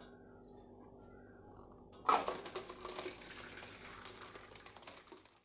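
Partly cooked rice and its hot cooking water being poured from a pot into a perforated metal colander, the water splashing and draining through the holes. The pouring starts about two seconds in, after a faint steady hum, and stops just before the end.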